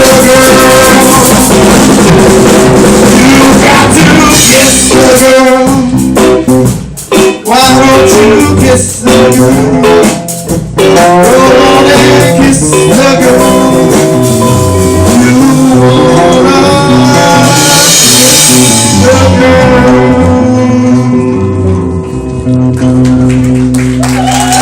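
A live amateur rock band with drums, bass guitar and electric guitar playing loudly, with a few abrupt stop-and-start breaks about a quarter to halfway through.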